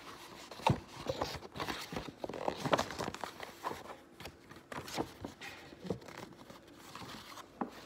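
A sheet of paper being handled and folded by hand, with irregular rustling and sharp crinkles as it is creased.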